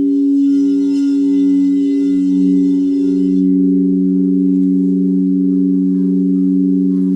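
Singing bowls ringing in long sustained tones, several pitches sounding together with a slow pulsing beat. A faint high shimmer sounds over the first three seconds or so.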